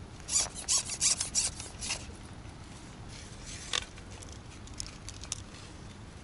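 Close handling noise from rigging a float fishing rod and its line: a quick run of sharp scratchy clicks and rubs in the first two seconds, then a few scattered ticks.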